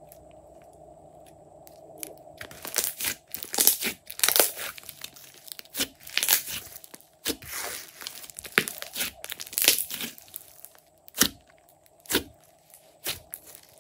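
Glossy slime squished, pressed and poked by hands, giving sticky crackles and popping air pockets. The crackling starts about two and a half seconds in and runs thick until near the end, where a few separate sharp pops remain.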